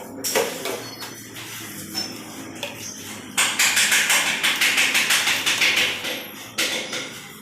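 Plastic and metal flush-tank fittings clicking and knocking as they are handled and fitted together. A few seconds in, louder rapid scraping and rattling begins and runs for about three seconds.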